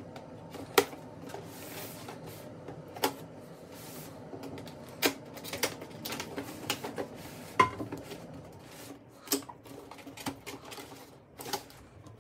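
A large cardboard box being handled and turned on a table, its end flap worked open by hand: irregular sharp knocks and taps of cardboard against the tabletop and fingers, with rubbing and scraping of cardboard between them. The loudest knocks come about a second in and again past the middle.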